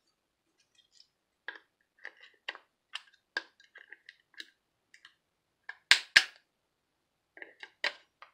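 Sharp clicks and cracks of a Cobra MicroTalk walkie-talkie's plastic housing being worked apart with pliers, the tool's jaws clicking against it. Two loud snaps come close together about six seconds in.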